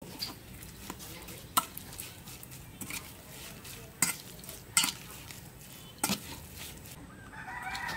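Metal ladle stirring a wet mix of minced pork, vermicelli and chopped spring onion in an aluminium bowl: a soft squelching scrape with irregular sharp clinks of metal on metal, a handful of them louder than the rest.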